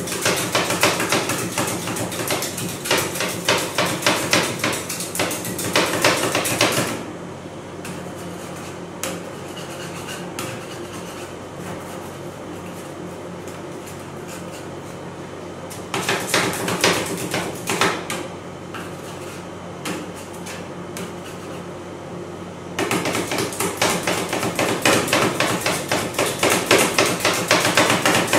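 Two steel spatulas chopping ice cream mixture on a stainless-steel cold plate: fast metallic clacks in three bursts, a long one at the start, a short one in the middle and another near the end. Between them, quieter scraping and a steady low hum.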